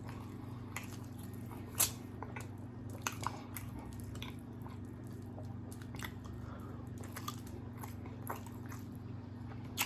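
A person chewing and biting into birria tacos close to the microphone, with scattered short mouth clicks and crunches, over a steady low background hum.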